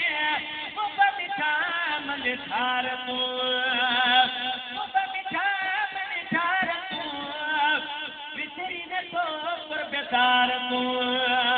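A man singing in long, held melodic lines with wavering, sliding ornaments, in the chanted style of a devotional poem.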